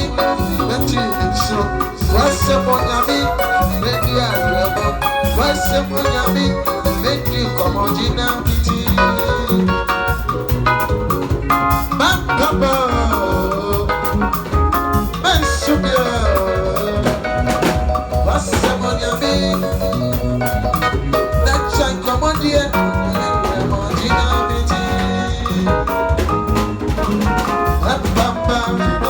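Loud, upbeat music played through a PA sound system during a sound check: a steady heavy bass beat under bright melodic lines, with a few sliding melodic phrases near the middle.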